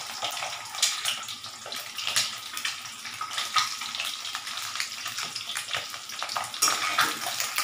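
Whole boiled eggs sizzling and crackling in shallow oil in a kadai, with a few sharper clicks and spits as they are turned with a spatula.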